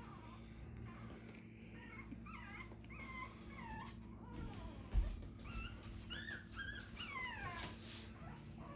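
A dog whining over and over in short, high-pitched, wavering whimpers, with a single thump about five seconds in.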